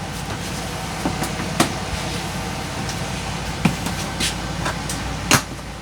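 A steady low machine hum with several short, sharp clicks and taps scattered through it, the loudest near the end.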